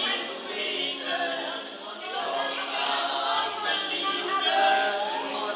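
A small group of women singing a song together.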